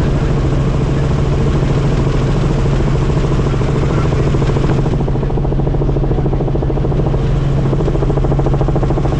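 Helicopter in flight: the steady drone of its engine and rotor, with a strong low hum that holds unchanged.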